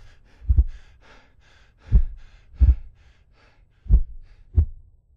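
Heartbeat sound effect: deep double thumps, lub-dub, with about two seconds between beats and the beat slowing, over a faint hiss. It stops just before the end.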